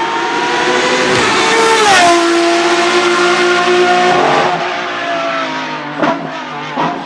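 Race car engine at high revs, its note climbing, then dropping sharply about two seconds in as it shifts up and pulling on again. Near the middle the revs fall away as it comes off the throttle, with two sharp pops from the exhaust near the end.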